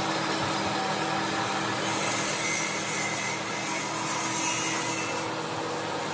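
Compressed-air spray gun hissing steadily as it sprays wood finish, getting brighter about two seconds in, over a steady low machine hum.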